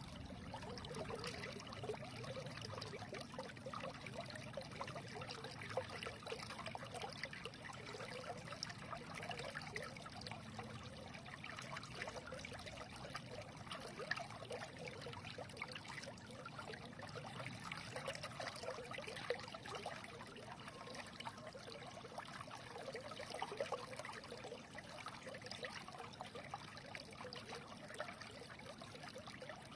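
A small stream trickling and burbling steadily over stones, with many small splashes and gurgles.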